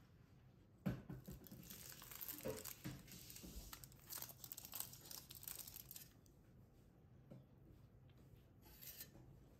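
Crinkling and tearing of a bread wrapper being opened. It starts with a sudden rustle about a second in, goes on for about five seconds, and comes back briefly near the end.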